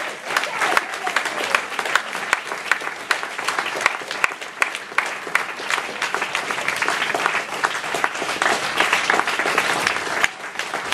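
Applause from an audience, with the cast clapping along: dense, steady clapping.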